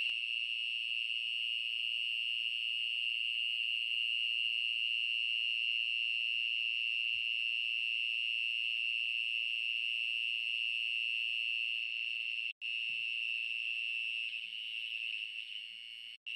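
A steady, high-pitched shrill chorus of insects, broken off for an instant twice near the end.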